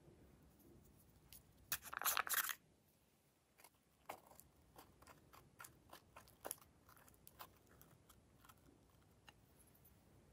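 Handling a small plastic glitter container over a bowl of slime: a short crackly rasp about two seconds in, then a run of irregular light clicks and taps as glitter is shaken out onto the slime.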